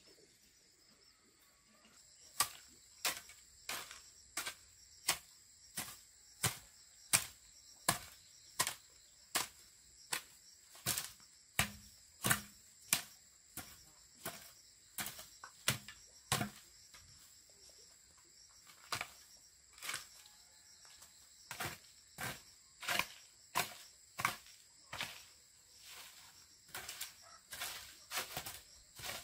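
A long-handled broom sweeping dry leaves and grit across bare dirt, in repeated scratchy strokes about once a second that begin a couple of seconds in and come faster near the end. A steady high insect drone runs underneath.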